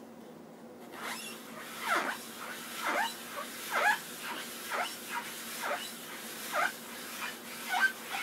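Melamine foam sponge rubbed back and forth over oil paint coated with beading poppy oil, squeaking on each stroke. The strokes start about a second in and come roughly once a second, each squeak sliding down in pitch.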